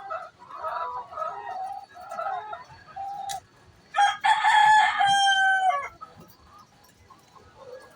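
Chicken clucking in a series of short calls, then one loud, drawn-out call lasting nearly two seconds about four seconds in; the pre-laying noise a hen normally makes before laying an egg.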